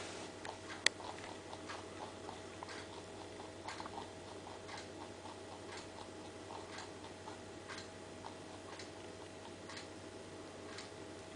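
Faint, even ticking about once a second over a steady low hum, with one sharper click about a second in.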